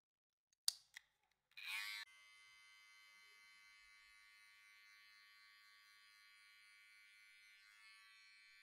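Two sharp clicks, then a barber's electric hair-cutting machine starts with a short louder burst and runs on with a quiet, steady high buzz.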